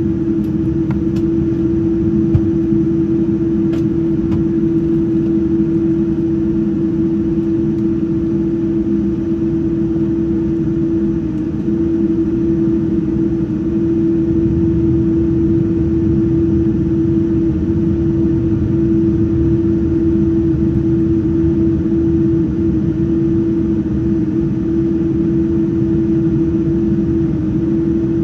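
Cabin noise of a Boeing 787-9 taxiing with its engines at idle: a steady drone with one strong, constant hum.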